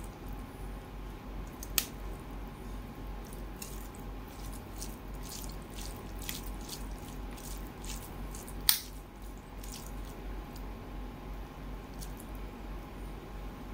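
Fingers squeezing and mixing rice with a coconut fish curry on a steel plate: wet squishing and sticky little clicks, with two sharper clicks, one about two seconds in and a louder one near nine seconds. A low steady hum runs underneath.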